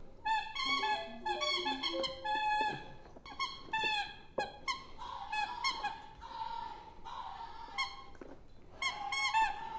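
A plush dog toy's squeaker squeaking over and over as a Dalmatian puppy chews and shakes it: short, high, wavering squeaks in irregular clusters, with a brief lull about two thirds of the way through.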